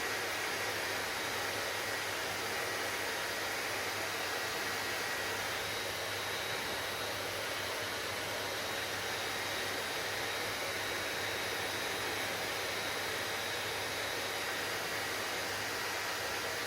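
Hair dryer running steadily: an even rush of blown air with a steady low hum and a faint high whine from the motor.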